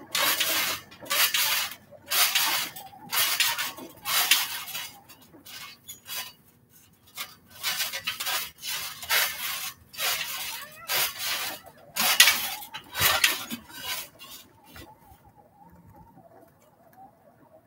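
Trampoline springs creaking and jangling with each bounce, about one bounce a second, stopping about fourteen seconds in.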